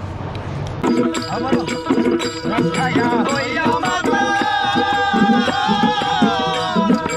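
Baul folk singers singing together to plucked stringed instruments and a hand drum, starting about a second in, with long wavering sung notes in the second half.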